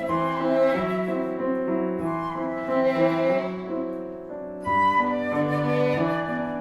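Chamber trio playing classical music: a flute melody over piano, with a bowed string instrument. The texture thins briefly about four seconds in, then the full ensemble comes back in.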